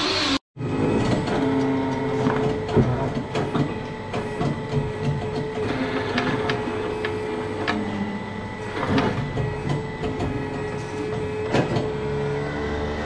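Steady machine hum with irregular metal clanks and knocks from a hydraulic hoof-trimming crush as a cow's hind leg is strapped and lifted.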